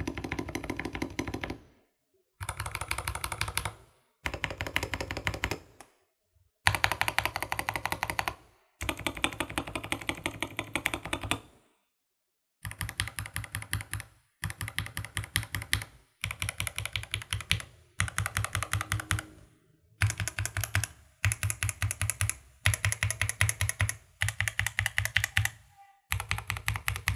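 Typing on a modded Vortex Series GT8 mechanical keyboard with Jwick T1 switches and tall ASA-profile PBT keycaps, in fast runs of keystrokes a second or two long with short pauses between. The keystrokes have a clack or thock sound. With the tempest mod, band-aid mod and lubed stabilizers, the keyboard has no rattle.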